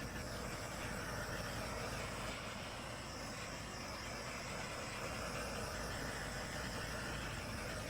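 Handheld torch hissing steadily as it is passed over wet acrylic pour paint to pop bubbles.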